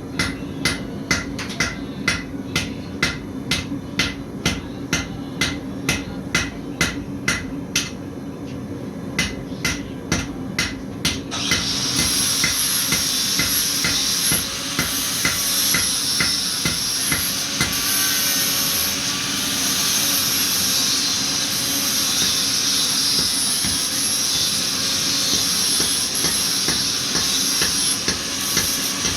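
Hammer striking hot metal on an anvil at a steady pace, a little over two blows a second, pausing briefly and stopping about eleven seconds in. Then a loud steady hiss starts and runs on, with a few fainter strikes under it at first.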